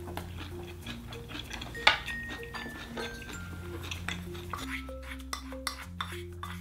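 Clinks and taps of a spoon against ceramic bowls as dishes are handled, over light background music; one sharp clink about two seconds in is the loudest, and the clinks come more often in the second half.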